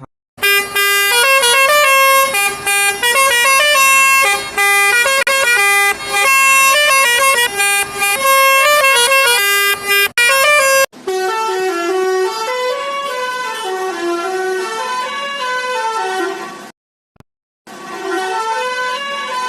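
Musical vehicle horn playing tunes, its notes stepping up and down in pitch. A different tune with zigzagging up-and-down phrases starts about eleven seconds in, and it breaks off briefly near the end before resuming.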